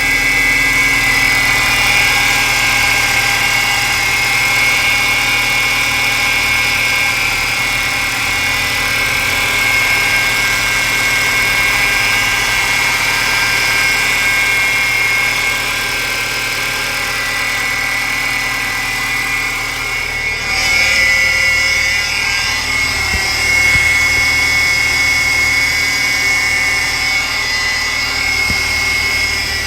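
2012 Ford Fusion engine idling with a steady high-pitched whine from the poly-V belt's pulleys, the sign of worn pulleys that need replacing.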